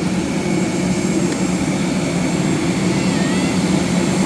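Steady low drone of jet-aircraft noise, with a constant two-note hum underneath.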